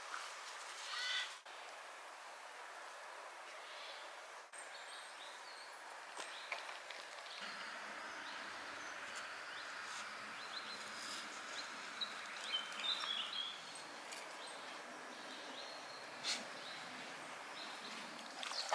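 Quiet countryside ambience: a steady background hiss with a few scattered bird chirps.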